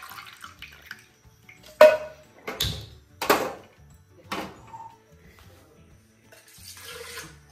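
The last trickle of milk pouring into a steel pot, then four sharp metal clanks about a second apart as the stainless steel pot and can are handled and the pot is set on a gas stove's grate. The first clank is the loudest; a soft hiss follows near the end.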